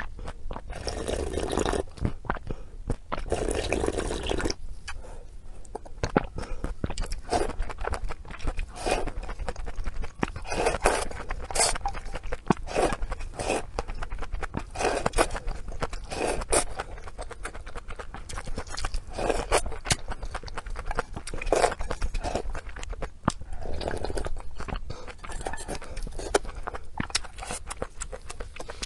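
Close-miked chewing of pork intestines: a dense, irregular run of short mouth clicks and smacks, with a few longer noisy stretches in the first few seconds.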